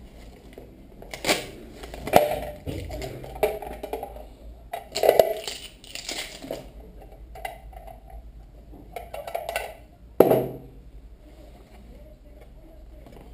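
Hard plastic packaging being handled and pulled apart by hand: irregular clicks, knocks and crinkles, with a sharp knock just after ten seconds in.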